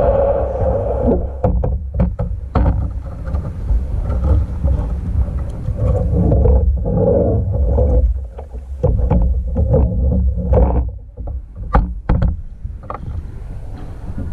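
Water against a plastic sit-on-top kayak's hull as it is paddled: a steady low rumble with many irregular sharp knocks and splashes from the paddle and hull, which come more often in the second half.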